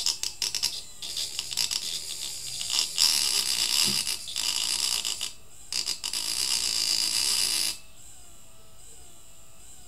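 A 200 W, 12 V permanent-magnet electric-scooter motor running in spurts: a harsh crackling hiss full of clicks, broken by three brief gaps, that cuts off abruptly about eight seconds in.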